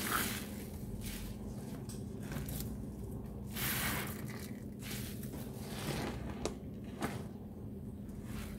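Sponges loaded with Ajax cleaning paste lather being squeezed and wrung by hand, giving wet squelching and squishing of thick foam in repeated squeezes, with two sharp clicks about six and seven seconds in.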